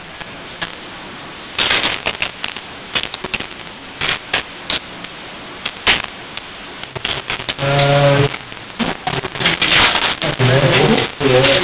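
Irregular clicking and rustling from laptop keyboards being typed on and papers being handed around, with brief low voices about eight seconds in and near the end.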